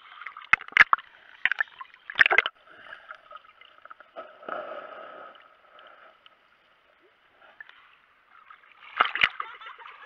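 Sea water sloshing and splashing against a waterproof action camera at the surface, with sharp slaps of water in the first two and a half seconds, a dull muffled stretch around the middle as the camera goes under, and a Labrador retriever splashing close by near the end.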